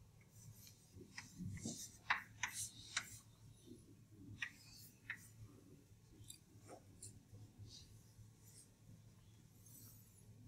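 Faint chalk taps and scratches on a chalkboard as an equation is written: a quick run of sharp taps and short strokes in the first few seconds, then sparser, fainter ones.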